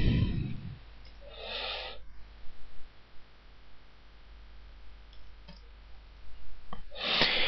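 Low steady hum and faint room noise, with a few soft computer keyboard clicks as a search term is typed. There is a short soft hiss about a second and a half in and another just before the end.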